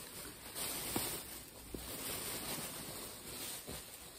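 Faint rustling and handling noise from reaching for and picking up a plush toy, with a few soft taps.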